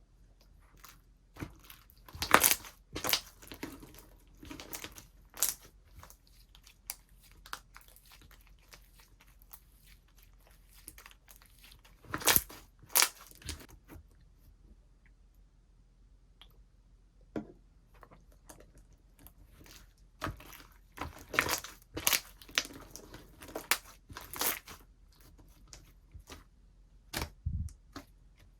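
Slime being squeezed, poked and stretched by hand, giving irregular sharp crackles and pops, with busier clusters about two seconds in, around twelve seconds and again past twenty seconds.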